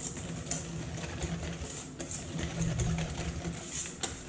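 Wire whisk beating a thick egg-yolk, sugar and flour paste around a stainless steel bowl as hot milk is worked in for pastry cream, a rhythmic scraping and clicking of the whisk against the metal.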